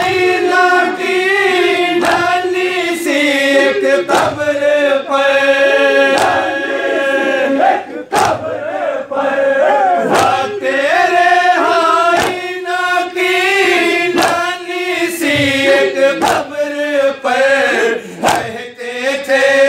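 Men chanting a noha (Urdu lament) in chorus with a lead singer, over the crowd's matam: hands slapping chests in unison about once a second.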